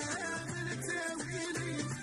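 Instrumental music with plucked strings over a pulsing bass note.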